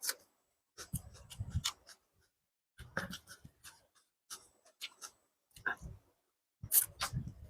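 Close-miked eating sounds of someone working through biryani and chicken curry: wet chewing and clicky mouth smacks in short clusters about every second or so.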